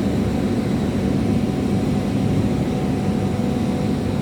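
Steady low mechanical drone of running machinery, even throughout, with a few faint steady tones above it.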